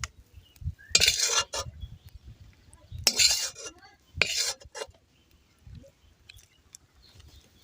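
Metal spoon scraping against a cooking pot in three short strokes, with faint clinks between them.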